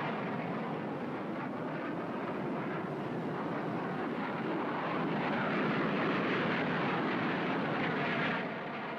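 Aircraft in flight: a steady rushing engine noise with no clear pitch, growing a little louder past the middle and easing off near the end.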